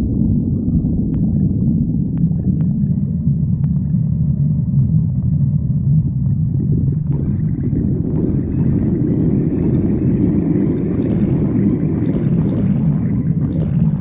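A hungry stomach growling, recorded close to the belly: one long, continuous low rumble that swells and grows fuller about halfway through, with a few faint clicks in the first half.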